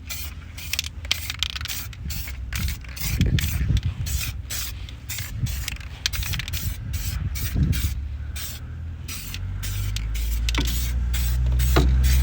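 Aerosol spray can hissing in many short bursts, about two to three a second, as the rusty brake and suspension parts are sprayed. A low rumble builds from about ten seconds in and is loudest near the end.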